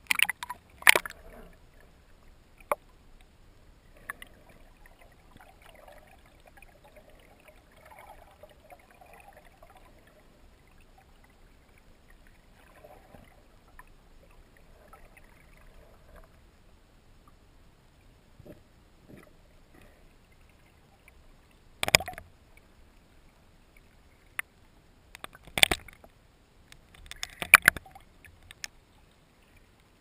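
Water splashing and sloshing against a waterproof camera housing held at the surface, with a few loud splashes at the start and again in the last third. Between them is a long, faint, muffled stretch while the camera is underwater.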